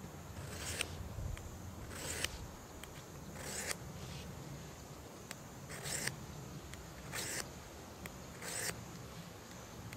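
Wind rumbling on the microphone, with short rustling scrapes about every second and a half.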